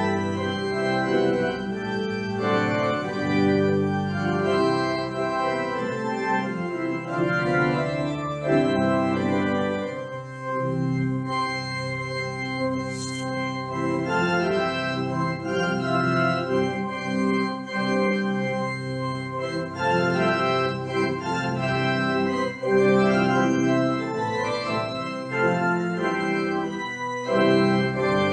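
Pipe organ playing slow, sustained chords that change every second or so.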